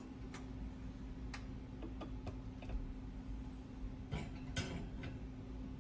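Light metallic clicks and taps, irregular and a few seconds apart, as wire hangers carrying powder-painted lead bullet weights are hooked onto a wire oven rack with needle-nose pliers, over a steady low hum.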